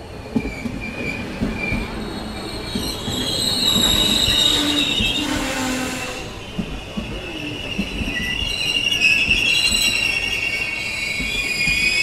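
Train brakes squealing: several high, wavering screeches layered over a low rumble of rolling wheels, swelling about four seconds in and again near the end, with a few knocks.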